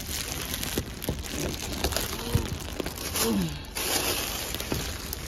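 Plastic wrapping on Christmas ornaments crinkling and rustling irregularly as the wrapped ornaments are handled and shifted about.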